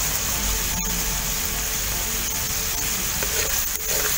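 Pork and onions sizzling steadily in a wide aluminium wok, with a spatula starting to scrape and stir near the end.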